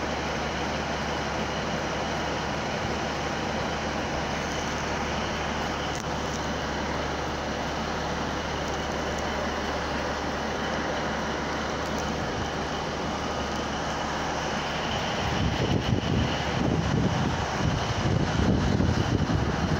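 Class 150 diesel multiple unit's underfloor diesel engine idling at the platform, a steady low hum. About fifteen seconds in, the sound turns louder and rougher, with uneven low rumbling.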